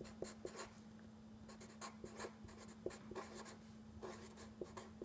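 Black felt-tip marker writing on paper: a string of short, faint scratching strokes as words are written out, over a faint steady hum.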